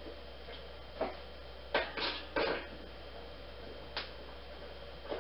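A few short knocks and clinks of a steel wire-grid futon frame and its screws being handled and fitted together on a wood floor, spread over a few seconds.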